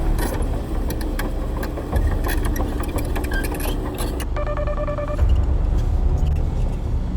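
Heavy diesel machinery running with a deep rumble and scattered clanks and knocks. A steady pitched tone, like a horn or warning beep, sounds for about a second just past the middle.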